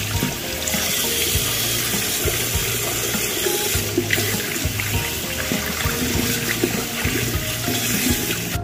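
Tap water running into a sink and splashing over a vacuum cleaner part as hands rub and squeeze it under the stream, with small knocks of handling throughout.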